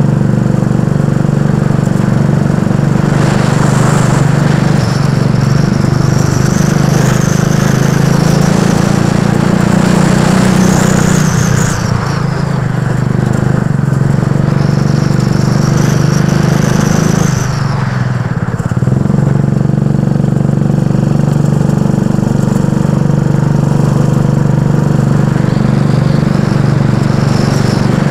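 Go-kart engine running hard through a lap, heard from onboard the kart, with a high whine that comes and goes. It eases off briefly twice, about twelve and eighteen seconds in.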